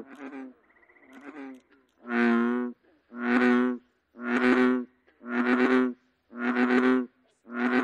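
American bullfrog calling: a series of six low, drawn-out croaks about a second apart, starting about two seconds in after a quieter stretch.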